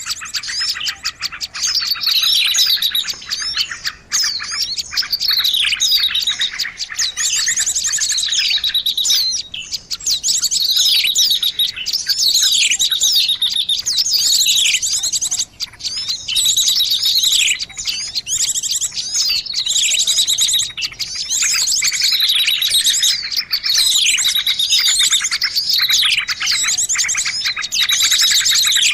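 Small songbirds chirping continuously, with fast buzzy trills and repeated high calls that sweep downward in pitch, dense and unbroken: a looped bird-lure recording for attracting small birds.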